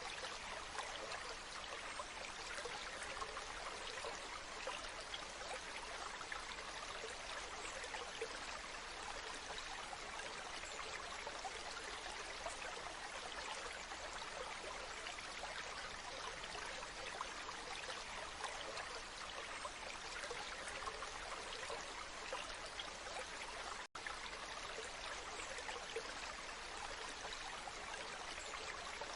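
Waterfall: a steady rush of falling water, even and unbroken except for a split-second drop-out near the end.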